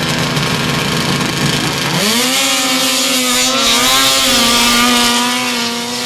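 Two 800 Pro Mod race snowmobiles launching off the start line. Their engines hold steady revs, then at about two seconds rise sharply to full throttle and stay at high revs as the sleds climb away, fading near the end.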